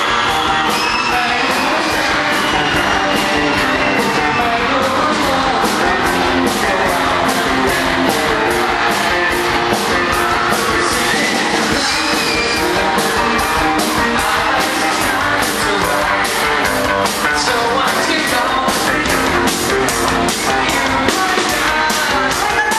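Live rock band playing: electric guitars and drums keeping a steady beat, with singing over it.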